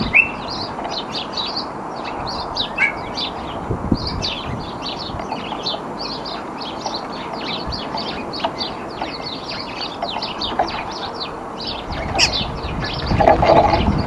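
Small garden songbirds chirping and twittering in quick, short high notes throughout, with an occasional brief rising call. A louder low noise comes in near the end.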